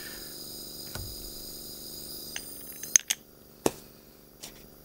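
Nebulizing aromatherapy diffuser's small air pump running on its low setting: a steady hum with a hiss of air. About three seconds in come a few sharp knocks as the microphone is moved, and the hum is fainter after them.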